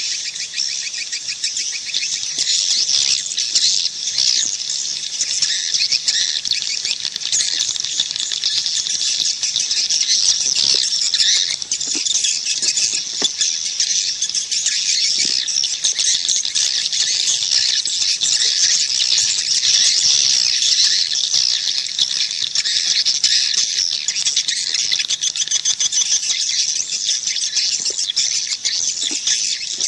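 Dense, unbroken twittering and chirping of many edible-nest swiftlets, high-pitched with nothing beneath it: a swiftlet call track of the kind played to draw swiftlets into a nesting house.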